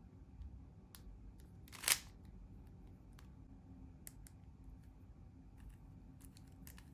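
Soft plastic clicks of a 3x3 speed cube's layers being turned by hand, with one louder sharp clack about two seconds in.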